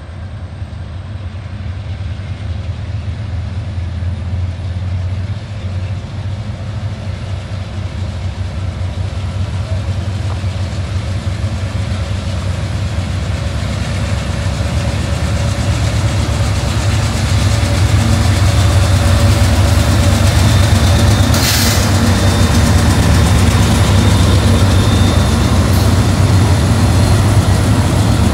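CSX, Union Pacific and Canadian Pacific diesel-electric locomotives working hard under heavy load, hauling a freight train up a steep grade. The deep engine rumble steadily grows louder as the units approach and pass. A brief hiss comes about three-quarters of the way through.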